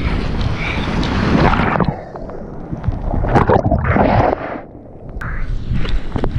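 Broken wave water rushing and splashing around a surfboard, mixed with wind buffeting an action camera's microphone. The noise drops briefly about two seconds in, surges with splashes, then goes muffled for about half a second past the middle as the camera dips into the water, before the whitewater rush comes back.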